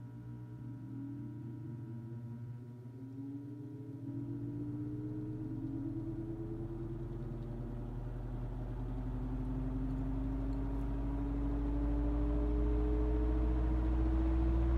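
1950s Mimar MP-416 16-inch table fan starting up on medium speed: the motor hums while the blade's whir rises slowly in pitch as it spins up. The rush of air grows steadily louder.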